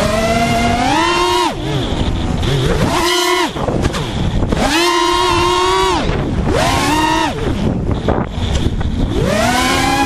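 FPV racing quadcopter's brushless motors and propellers whining, the pitch climbing and falling several times as the throttle is punched and released, with wind rushing over the microphone.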